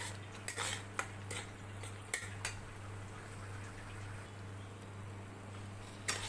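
Flat metal spatula scraping and stirring thick papaya jam in a kadai: several scrapes in the first two and a half seconds, a pause, then more scraping near the end. A low steady hum runs underneath.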